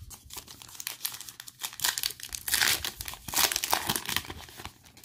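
Foil wrapper of a football trading-card pack being torn open and crinkled in the hands: a dense, irregular run of crackles that stops abruptly near the end.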